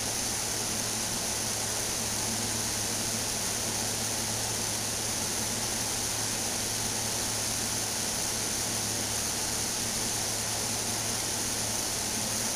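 Wood stove running hot, a Drolet Escape 1800: a steady rushing hiss over a low, even hum, with no crackling.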